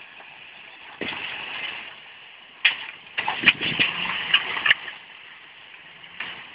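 Off-road 4x4's engine running as it works on a loose dirt slope, with a cluster of sharp cracks and knocks for about two seconds in the middle.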